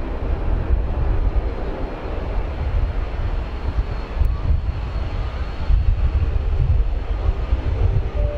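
Jet airliner engines running: a low, continuous rumble that swells and fades, with a faint steady high whine above it.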